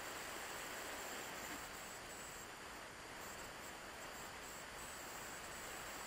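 Steady hiss of air rushing past the nose-mounted camera of a Talon RC plane in flight, with a thin high whine faintly over it.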